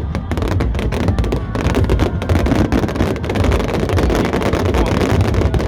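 Fireworks display: a dense run of rapid cracks and bangs over a continuous low rumble.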